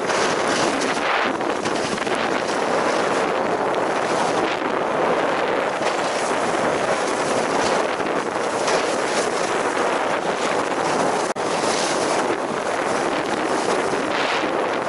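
Wind rushing over the microphone of a camera carried downhill at speed on skis, a steady loud roar mixed with the hiss of skis on packed snow, with a momentary dropout about eleven seconds in.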